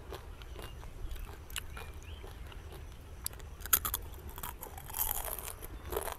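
Crisp fried banana chips being bitten and chewed: irregular sharp crunches, the loudest about three and a half seconds in.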